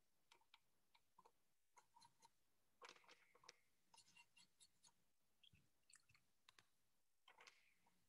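Near silence with faint, irregular clicks and light taps from a watercolour brush and painting supplies being handled, loudest about three seconds in.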